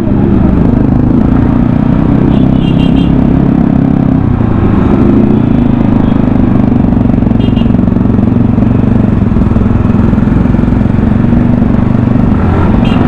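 Sport motorcycle engine running steadily at low speed as the bike is ridden slowly through town traffic, with small changes in throttle. A couple of brief faint high beeps sound over it.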